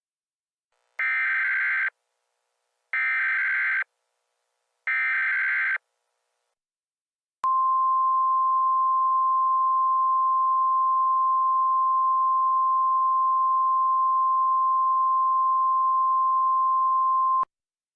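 Emergency Alert System tones: three one-second bursts of the SAME digital header, a harsh buzzing data screech, then a single steady attention tone near 1 kHz, the 1050 Hz weather-radio alert tone, held for about ten seconds before cutting off. This is the header and attention signal that opens a new alert message.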